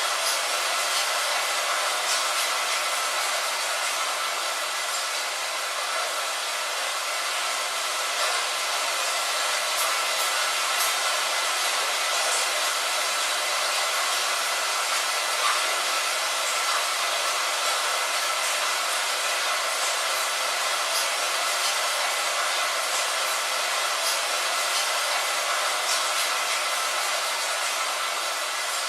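Steady rain falling on a window: an even hiss with faint, scattered taps of single drops.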